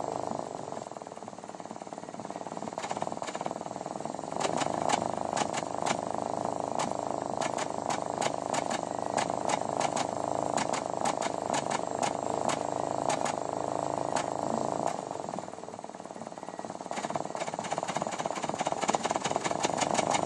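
Exhaust of a Mitsubishi Lancer Cedia Ralliart's turbocharged 4G93 1.8-litre inline-four, heard close to the tailpipe, running unevenly with sharp, irregular pops and puffs: a cylinder 2 misfire (code P0302). The engine sound drops off twice for a few seconds and then comes back with more pops.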